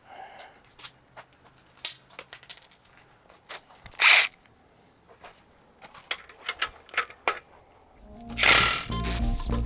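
Scattered clicks and knocks of metal tools and engine parts being handled, with a loud short hiss about four seconds in. Near the end, background music with a steady bass comes in.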